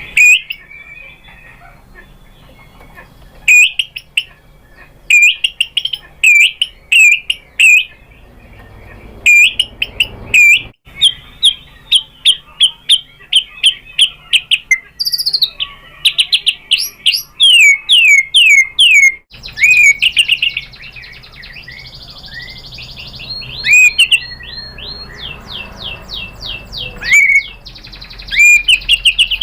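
White-rumped shama singing: loud series of quick, sharp repeated notes and short sweeping whistles, broken by brief pauses between phrases.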